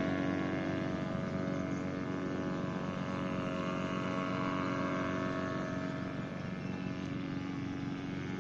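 Radio-controlled paramotor's motor and propeller running steadily in flight, slowly growing fainter.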